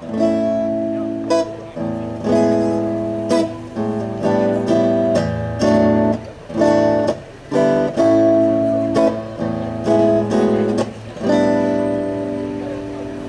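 Acoustic guitar strumming chords in a steady rhythm: the instrumental introduction to a song, before the singing comes in.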